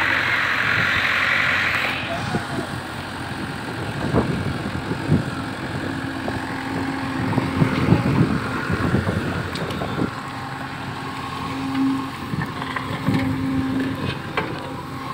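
JCB backhoe loader's diesel engine running under load while the backhoe digs, with scattered knocks and scrapes of the steel bucket in stony soil. A bright hiss fills the first two seconds, and the engine note swells briefly a few times near the end.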